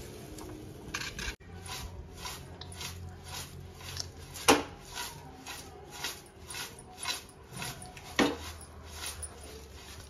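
Crisp flattened rice (atukulu) rustling and scraping in a large aluminium pot as it is tossed by hand, in a regular run of about two or three swishes a second with a couple of louder scrapes.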